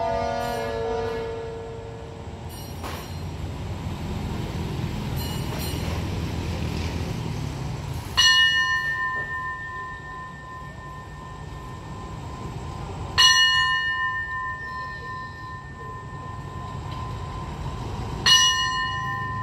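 A station bell struck three times, about five seconds apart, each strike ringing on and fading, over the low steady rumble of the waiting diesel train. A short run of falling chime notes dies away in the first two seconds.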